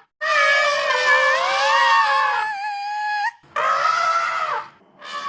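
Elephant trumpeting: a long call of about three seconds whose pitch rises near its end, then a shorter call about a second later. Each one cuts off abruptly.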